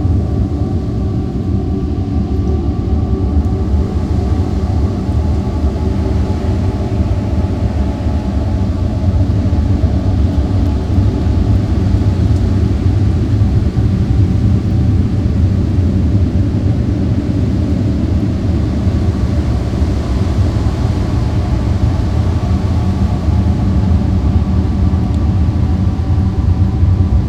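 A steady low rumbling drone with several held tones over it, swelling slightly partway through.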